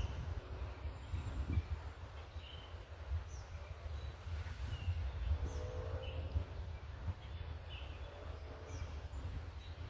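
Small birds chirping, short calls every second or so, over a steady low rumble.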